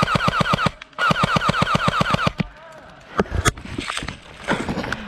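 An airsoft gun firing two fully automatic bursts close by, about ten shots a second, each shot with a short falling twang. A dull thump follows about three seconds in.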